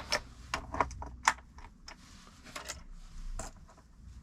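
Irregular small clicks and taps as leisure-battery terminal clamps are handled and pushed onto the battery posts, the sharpest about a second in.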